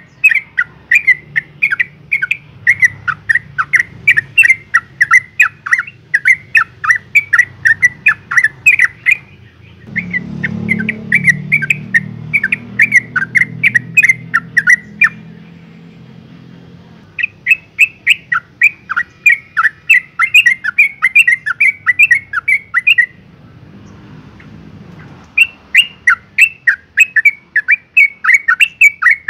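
Yellow-vented bulbul giving loud, rapid chattering calls, about three sharp notes a second, in long bouts with two short pauses. The uploader presents it as a female in breeding condition calling to a male.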